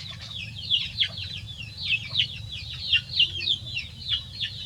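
Birds chirping without a break: rapid, high, falling chirps, several a second and overlapping, over a low steady hum.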